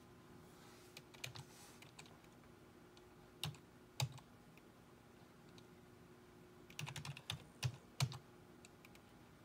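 Computer keyboard keys being pressed as settings are entered: a few separate keystrokes, then a quick run of several keystrokes later on.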